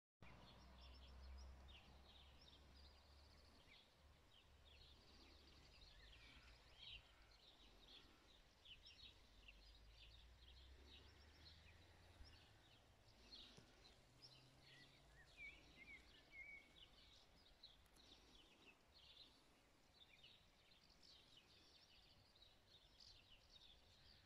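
Faint outdoor ambience of small birds chirping and singing, many short high calls scattered throughout, with a faint low rumble that dies away about halfway.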